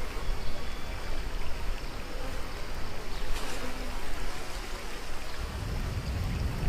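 Rushing, churning water of a river-rapids raft ride, a steady wash of noise with a brief splash-like burst about three seconds in. A low rumble swells near the end.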